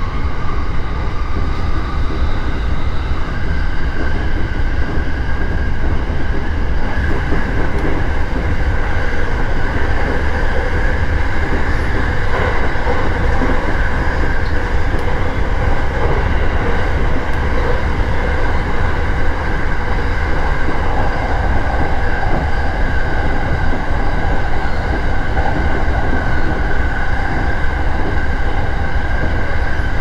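Electric commuter train running at speed, heard from inside the driver's cab: a steady low rumble of wheels on rail with a steady higher hum over it.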